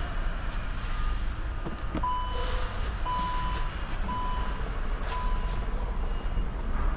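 A vehicle reversing alarm beeping five times, about once a second, over a steady low rumble.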